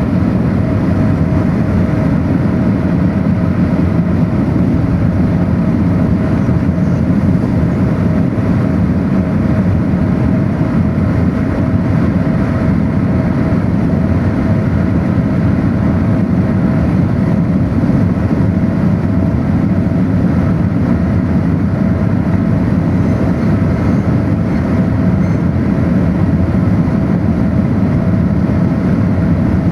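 Steady engine and road noise of a moving vehicle heard from inside, a constant low rumble with a faint steady whine running through it.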